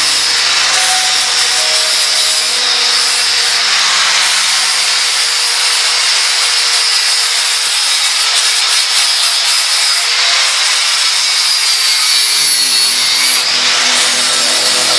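Angle grinder running steadily against metal: a continuous grinding hiss over a high motor whine, which sags in pitch briefly near the end as the disc is loaded.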